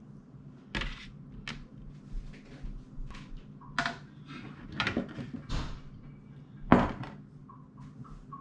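Dishes and a bowl being handled on a wooden table, a handful of separate knocks and clatters, the loudest about two-thirds of the way through, over a low steady hum.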